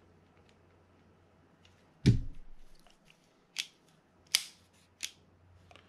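Handling sounds from reassembling a Shimano Baitrunner 12000D spinning reel and its tools: one dull knock about two seconds in, then three short, sharp clicks spaced a little under a second apart.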